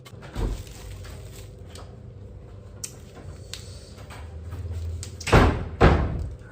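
A dull thump about half a second in, then two loud knocks about half a second apart near the end, over a low hum.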